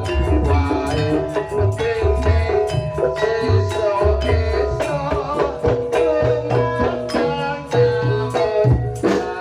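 Jaranan Dor ensemble music: fast, steady hand-drumming over deep bass-drum thumps, with sustained melodic instrument lines above.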